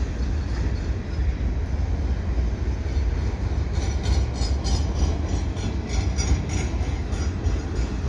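Long freight train of empty centerbeam lumber cars rolling past, a steady low rumble, with a run of rapid clicks from the wheels starting about halfway through.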